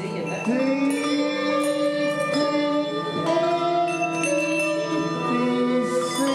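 Handbells played as a melody, a Christmas carol, one note struck about once a second with each note ringing on under the next.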